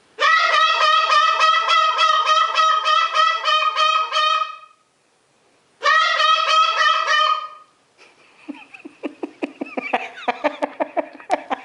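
A pet parrot calling in a rapid run of honking notes, about four a second, in two bouts, the second one shorter. It is followed near the end by softer rapid clicking chatter.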